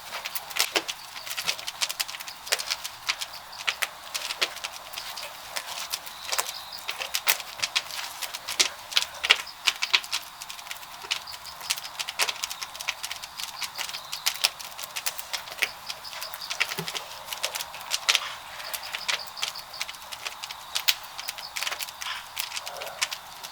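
Wood burning in a traditional Korean wood-fired kiln (jangjak-gama), crackling and popping in quick irregular snaps over a light hiss of flame.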